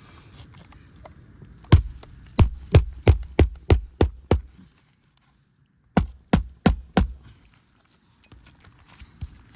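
Hammer driving roofing nails through an asphalt shingle: a run of about eight sharp strikes, a short break, then four more.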